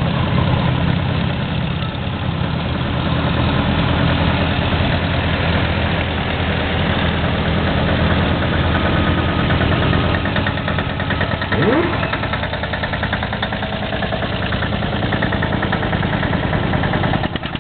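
Vintage tractor engines running as tractors drive past one after another. A heavy low engine drone fills the first half, and rapid, even firing beats of a smaller engine come through in the last few seconds.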